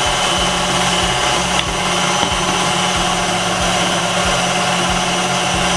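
KitchenAid stand mixer running steadily, its beater creaming butter and sugar as beaten egg is added.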